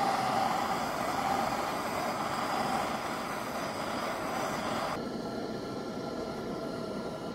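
Welding arc crackling steadily as a weld is laid on a broken steel gear-actuator shaft, the tone shifting about five seconds in.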